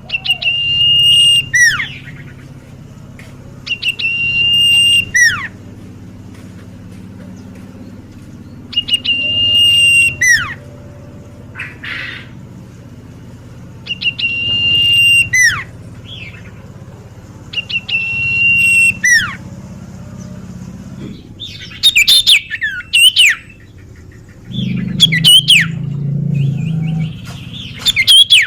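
Common iora (cipoh) singing loud, repeated phrases about every four to five seconds: each is a long, steady whistled note with a quick falling note at its end. Later, quicker and more varied chirping notes follow over a steady low hum.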